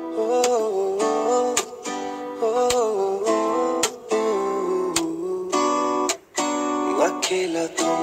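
Background music led by a plucked acoustic guitar, with a brief break about six seconds in.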